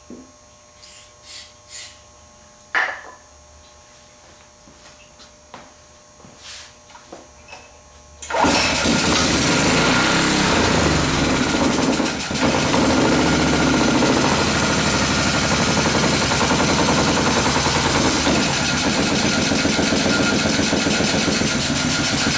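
A few light clicks and taps, then about a third of the way in a small 5.5 hp Honda single-cylinder engine fed with HHO gas starts up suddenly and runs loudly and steadily, with a brief dip about halfway through.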